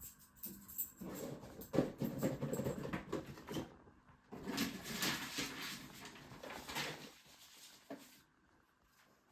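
Fabric rustling and being handled in two stretches of crackly, scratchy noise. This fits bed linen being pulled and smoothed.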